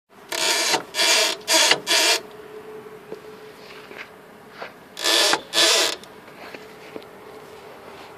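Loud creaking squeaks from something being worked back and forth: four in quick succession, then two more about three seconds later, over a faint steady hum. The owner puts the squeak down to a dried-out part.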